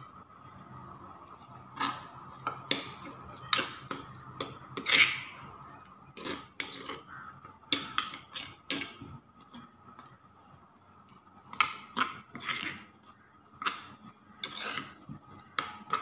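A metal spoon scraping and knocking against a stone mortar while a wet chilli paste is stirred, with a few scrapes against a ceramic plate at the start. The clinks and scrapes come irregularly, some sharp and loud, over a faint steady hum.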